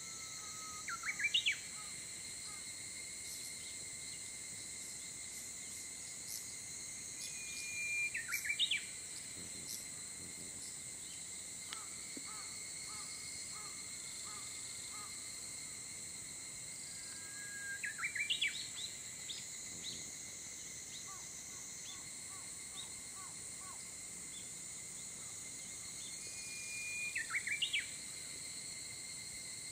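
A songbird singing the same phrase four times, about nine seconds apart: a long held whistle, then a quick warbled flourish. Under it runs a steady high drone of insects, with a few faint short calls from another bird in between.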